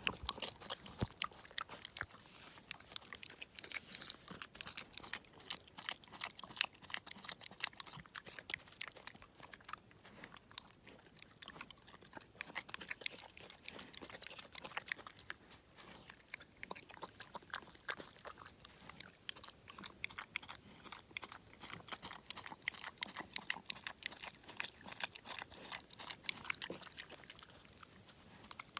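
Young boar pig eating chocolate donut glaze: rapid, irregular chewing and smacking, many quick clicks a second without pause.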